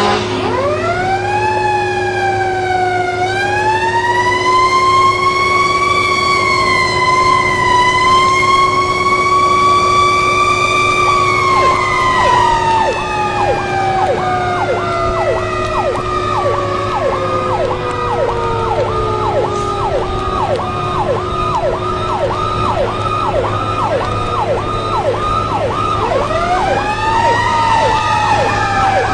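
Fire truck sirens. One wails up and holds, then winds down slowly over several seconds, while a second siren yelps rapidly at about one and a half sweeps a second. Near the end another wail rises, all over a steady low drone.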